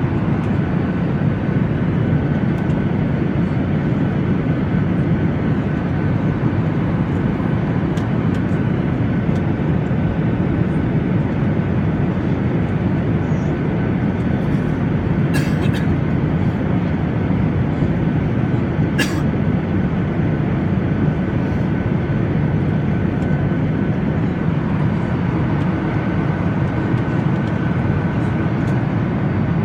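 Steady cabin noise of an airliner in cruise, the engine and airflow noise heard from inside the pressurized cabin, with a faint steady tone. Two brief clicks come about fifteen and nineteen seconds in.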